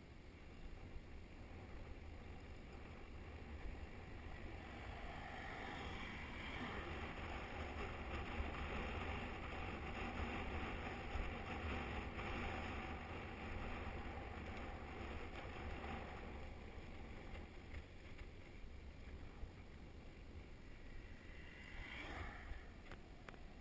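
Wind rushing over the microphone of a camera mounted on a moving bicycle, with the tyres running on tarmac. It builds about four seconds in, is loudest in the middle and dies back after about sixteen seconds, with a short louder rush near the end.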